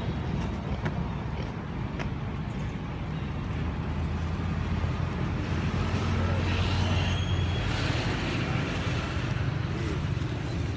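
Steady low outdoor background rumble, with a few faint high chirps about six to seven seconds in.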